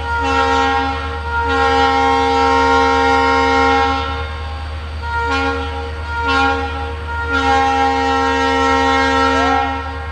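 WDP4D diesel locomotive sounding its horn in two sequences, each of two short blasts and then a long one, over the steady low rumble of its engine.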